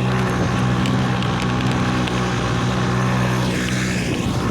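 Small 'Jet Turbo' boat motor running steadily through a motorized-bicycle exhaust muffler, a steady low drone that weakens about four seconds in.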